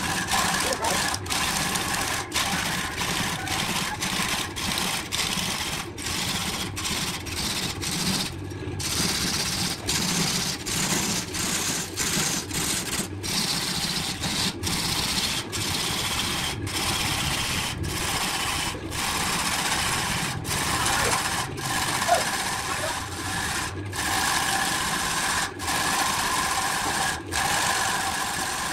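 Wood lathe running steadily while a gouge cuts into a spinning charred wood blank, a continuous motor hum mixed with scraping cutting noise as shavings come off.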